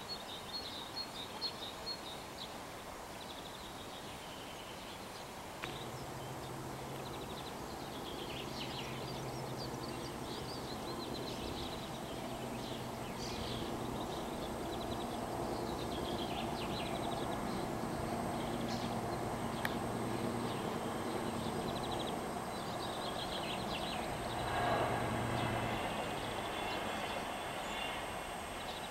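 Birds singing and calling in the background, many short chirps and trills. About six seconds in, a low steady drone starts and runs on beneath them.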